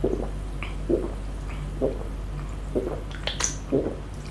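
A person gulping down a glass of cola, with loud swallows about once a second, five in all.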